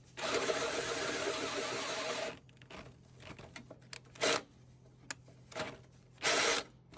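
Cordless drill spinning a step drill bit through a hole in a metal bracket to enlarge it: one run of about two seconds, then short bursts near 4 s and 6 s as the edge of the hole is bevelled.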